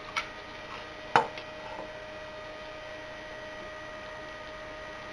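Steady electrical hum with a single sharp knock about a second in.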